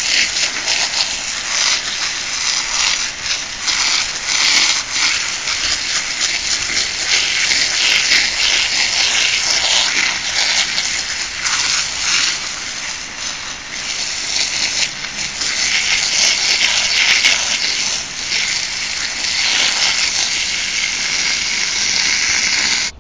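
Jet of water from a garden hose nozzle striking a black pine's root ball and the wet soil around it, a steady hiss and splatter that wavers in loudness as the aim moves: the soil is being washed out of the tree's roots.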